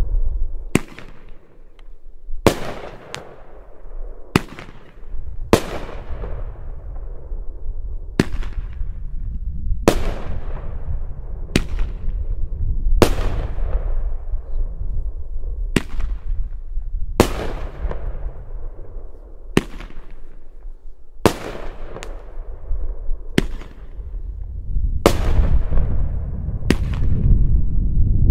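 Shogun 'Blue Me Away' sixteen-shot 500-gram finale cake firing its aerial shells one after another: a sharp bang about every one to two seconds, each trailing off before the next.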